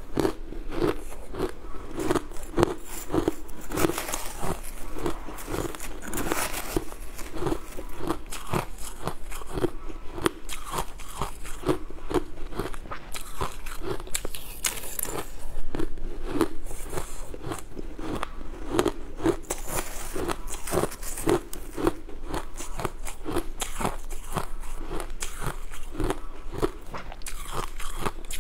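Crushed ice being bitten and chewed close to a clip-on microphone: a dense, continuous run of sharp crunches and crackles, bite after bite.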